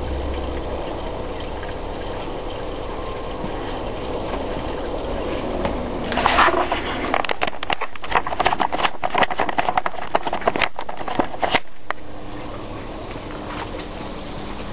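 Water gurgling and bubbling in a sealed aquarium as a vacuum draws on it, with a steady hum beneath. About six seconds in, a run of irregular crackling and popping starts and lasts several seconds, then gives way to quieter steady bubbling.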